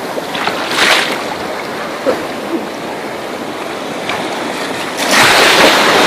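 Small sea waves washing and splashing in shallow surf, with a louder rush of breaking water about five seconds in.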